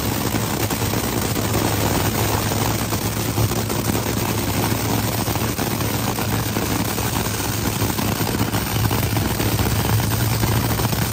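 Top Fuel dragster's supercharged nitromethane Hemi V8 idling with a steady, rapid crackle.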